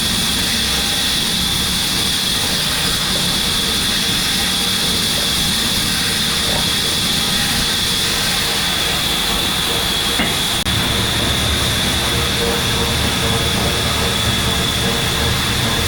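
Loud, steady machine noise, a hiss over a low rumble. The rumble changes abruptly about two-thirds of the way through.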